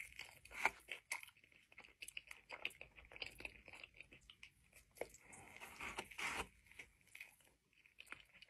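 Close-miked eating sounds of biting into and chewing a soft flour-tortilla burrito: irregular mouth clicks and smacks, louder near the start and about six seconds in.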